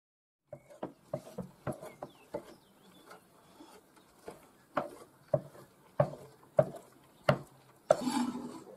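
Knife chopping dried berries on a wooden cutting board: a run of sharp knocks of the blade on the board, starting about half a second in, quick and uneven at first, then about one and a half a second, with a longer scraping sound near the end.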